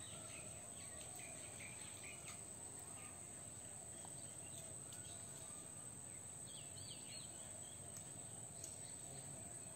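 Faint rural background at a pond: a few small bird chirps over a steady high-pitched drone and low hiss.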